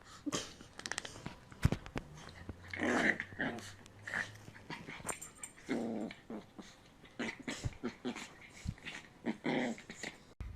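A dog growling in short, repeated bursts, with a few sharp clicks in the first couple of seconds.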